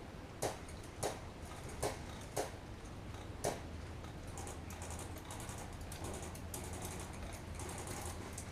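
Five sharp, irregularly spaced snaps of airsoft guns firing single shots in the first three and a half seconds, followed by faint rapid ticking.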